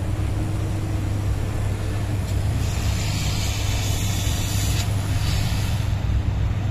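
Hot-air SMD rework station blowing on a circuit board to desolder a tiny resistor: a steady fan hum under a hiss of air. The hiss grows louder for about two seconds in the middle.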